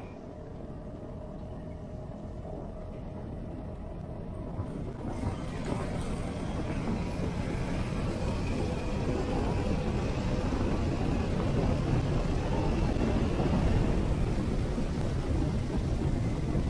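Vespa GTS scooter riding at road speed: its engine and road noise heard from the bike. From about five seconds in, the sound fills out and grows gradually louder as it runs through an arched stone-lined road tunnel.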